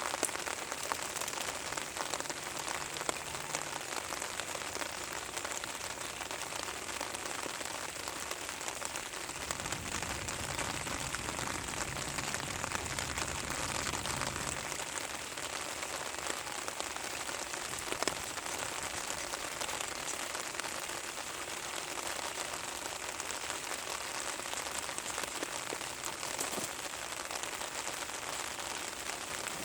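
Steady rain falling and pattering on a surface, with a low rumble joining for several seconds in the middle.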